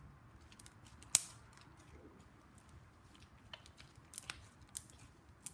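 Slime being mixed in a bowl, with lotion just added: scattered sticky clicks and pops. The sharpest comes about a second in, and a quick cluster follows near the end.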